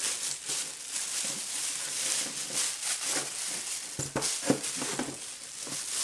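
Clear plastic packaging bags crinkling and rustling as they are handled and pulled out of a foam and cardboard box insert, with a few short knocks around four to five seconds in.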